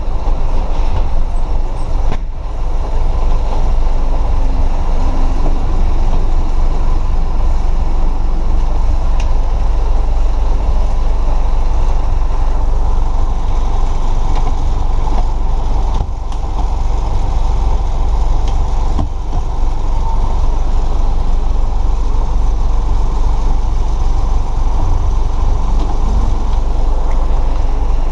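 Cab noise of a Caio Apache Vip 2 city bus under way in heavy rain: the engine runs steadily under a constant hiss of rain and wet tyres, with the bus body rattling and creaking.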